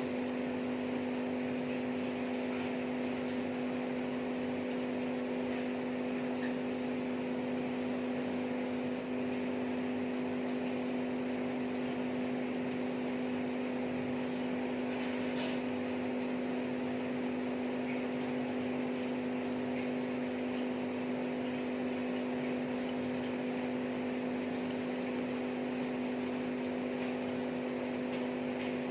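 Steady mechanical hum with a few fixed low tones over a constant hiss, broken by a few faint, short clicks.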